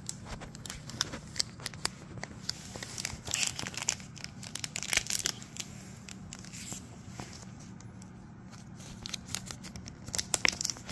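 A foil trading-card booster pack crinkling and being torn open by hand, with irregular crackles of the wrapper, easing off for a few seconds about two-thirds of the way through before more crinkling.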